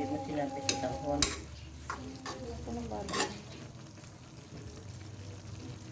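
Metal ladle stirring glass noodles and banana heart in broth in an aluminium wok, with about five sharp clinks of the ladle against the pan in the first three and a half seconds, then quieter stirring.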